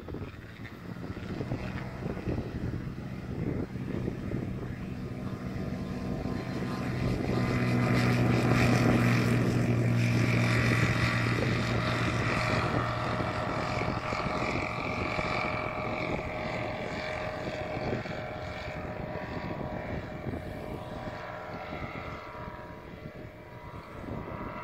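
Light propeller aircraft's engine at full power on a takeoff run. It grows louder over the first several seconds, is loudest about a third of the way in, then fades steadily as the plane climbs away.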